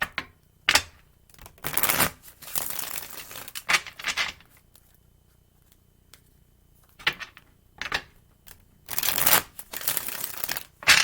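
Tarot cards being shuffled and handled, a few rustling, riffling bursts with a quiet pause in the middle.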